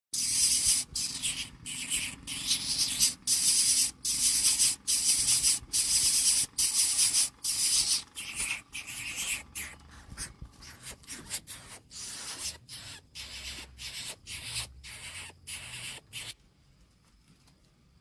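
Nestling bird's rasping, hissing begging calls, repeated about one and a half times a second; they grow fainter through the second half and cut off suddenly near the end.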